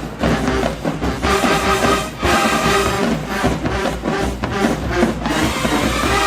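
HBCU marching band playing in the stands: brass holding loud chords over heavy drum hits.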